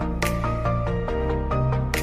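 Background music: a gentle instrumental with held bass notes under a melody of short notes, and a bright hit near the start and again near the end.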